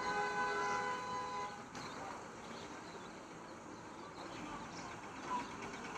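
A horn sounds one steady chord of several tones for about a second and a half, then stops, leaving faint outdoor background.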